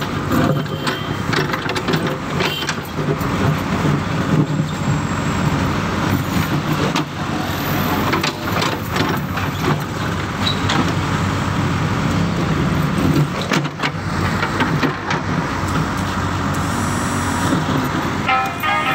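JCB backhoe's diesel engine running steadily under load while it digs a narrow trench in soil, with scattered knocks and scrapes from the bucket and earth.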